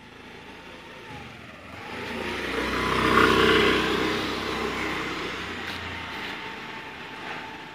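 Honda Activa 6G scooter's 110 cc single-cylinder engine riding past: it grows louder, peaks about three seconds in, then fades as the scooter rides away.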